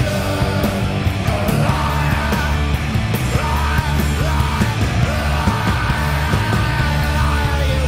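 A punk rock band playing live: loud distorted electric guitars, bass and drums, with a shouted lead vocal.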